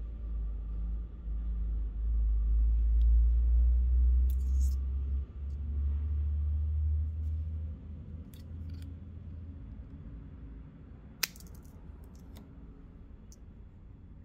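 Low rumble with faint clicks and rustles of fishing line being handled and wrapped between fingers. The rumble fades about eight seconds in, and there is one sharp click a little after eleven seconds.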